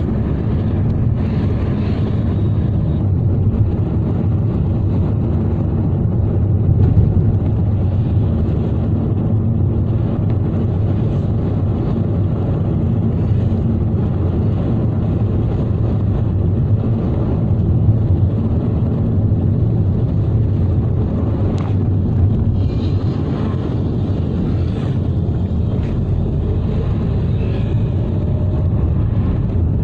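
Steady low rumble of a car driving along a main road, engine and tyre noise together, with one short click about two-thirds of the way through.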